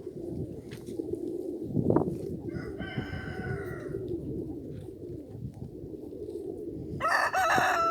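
Rooster crowing: a fainter crow about three seconds in, then a loud, close crow starting near the end, over a low steady murmur of pigeons cooing.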